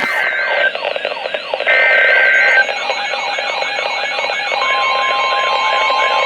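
NOAA Weather Radio emergency alert coming in: two short bursts of the Emergency Alert System header data screech in the first three seconds, then the steady single-pitch attention tone starting about four and a half seconds in. Under both, a weather radio receiver's warbling siren alarm repeats a falling sweep about twice a second.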